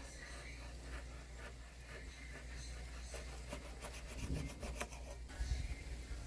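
Stiff rubber radiator hose being cut into short pieces by hand, a run of quick rasping strokes about three seconds in, over a steady low hum.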